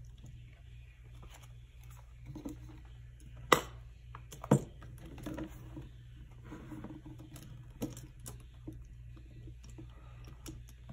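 Small taps and clicks of hands handling planner pages and stickers, with two sharper clicks about three and a half and four and a half seconds in, over a steady low hum.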